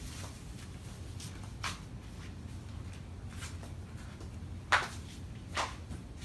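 A few short, soft scuffs over a low steady hum, the loudest about three-quarters of the way through.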